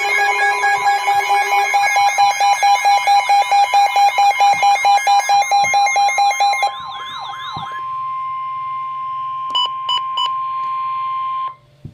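Several weather-alert receivers sounding emergency alert tones at once: fast pulsing beeps layered over warbling siren-like tones. Most of them stop about seven seconds in, leaving a single steady alarm tone with three short beeps near the ten-second mark. That tone cuts off suddenly about a second before the end.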